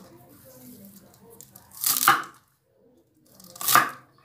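Kitchen knife slicing through a bundle of crisp sawi (mustard green) stems onto a wooden chopping board: two crunchy cuts, about two seconds in and again near the end.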